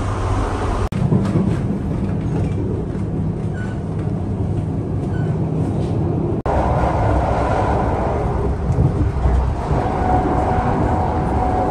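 Steady rumble and hum of a KTM ETS electric train running at speed, heard from inside the carriage. The sound drops out for an instant twice, about a second in and again just past the middle.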